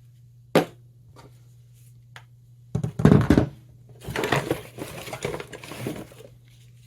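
Tool handling: a sharp click, a loud knock about three seconds in, then a couple of seconds of irregular scraping and rattling as cordless tools and batteries are handled.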